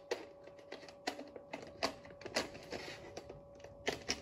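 Plastic clicks, knocks and scraping as a detachable scope is pushed and wiggled onto a Nerf blaster's rail, several sharp irregular clicks, harder to seat than expected.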